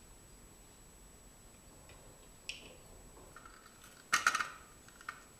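Sharp clicks and a brief clatter of hard plastic as a mouse knocks against a 3D-printed plastic mousetrap: one faint click, then a quick burst of rattling clicks about four seconds in and a last click shortly after.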